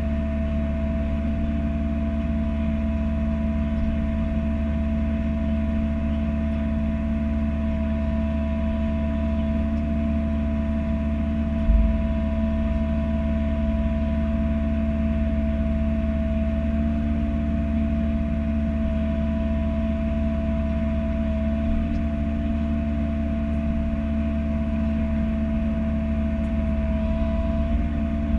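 Bobcat E42 mini-excavator's diesel engine running at a steady speed, with a steady whine over it and a single knock about twelve seconds in.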